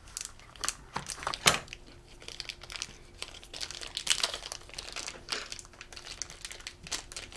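Plastic packaging crinkling and crackling in irregular bursts as a toy blind box's contents are handled and opened, with one sharper crackle about a second and a half in.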